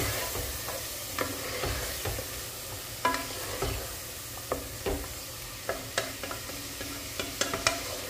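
Marinated mutton pieces sizzling in hot oil with fried onions in a metal pressure cooker pot, stirred with a wooden spatula that knocks and scrapes against the pot at irregular moments, several in quick succession near the end. The raw meat is being seared (bhunai) over a fairly high flame.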